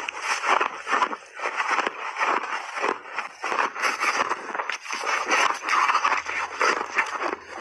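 Close-miked crunching of refrozen ice chunks being chewed in big bites: a dense, irregular run of sharp crunches and crackles.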